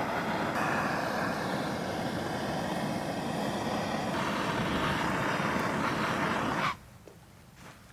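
Leaf blower running steadily at full blast, then cutting off abruptly near the end; a few soft footsteps follow.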